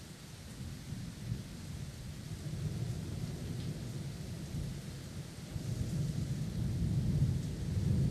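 Steady rain with rolling thunder rumbling low underneath, swelling twice, the stronger swell in the second half.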